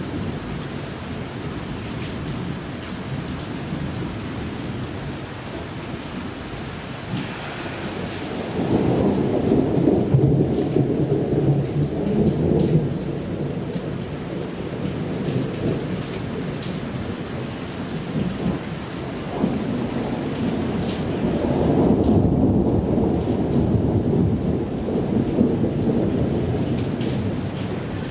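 Thunderstorm: steady rain with two long, low rolls of thunder, the first swelling about eight seconds in and the second about twenty seconds in.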